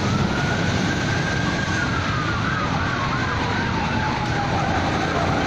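Sirens sounding over a steady low rumble: one long wail rises at the start, holds, then slowly falls, and from about halfway a faster yelp rises and falls about three times a second.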